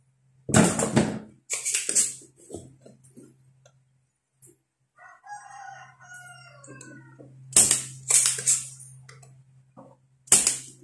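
A rooster crows once, a long call that falls in pitch, about halfway through. Loud, sharp clattering noises from tools being handled on the bench come near the start and again near the end, over a steady low hum.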